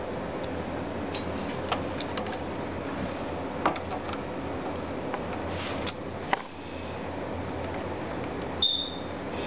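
A few light clicks and taps of computer parts being handled, over a steady room hum. Near the end comes a short, high metallic ping.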